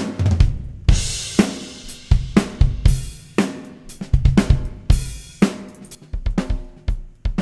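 Multitrack acoustic drum kit recording playing back: kick, snare and cymbal hits in a steady beat, with the snare triggered by Superior Drummer 3 replacement samples. A run of quicker hits comes near the end.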